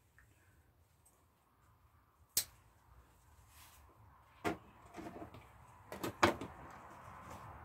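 Sharp snips of hand scissors cutting plant stems, a couple of seconds apart. They are followed near the end by a louder cluster of clicks and rustling as squash flowers and beans are handled into a clear plastic container.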